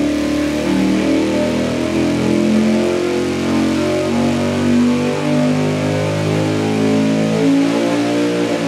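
598-cubic-inch big-block Chevrolet V8 with a single four-barrel carburettor on a Dart single-plane intake, at wide-open throttle on an engine dyno, pulling up through the rev range to about 6,600 rpm.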